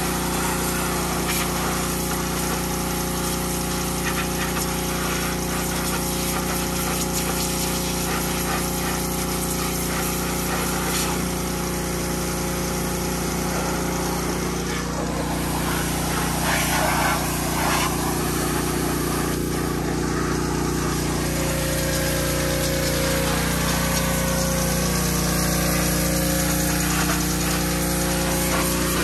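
Garden tractor's small gasoline engine running steadily, with a regular low pulsing; its pitch sags and shifts somewhat in the last third.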